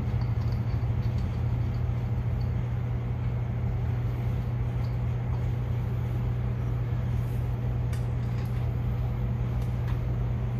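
A steady low hum, with a few faint clicks of small metal engine parts being handled in the last few seconds.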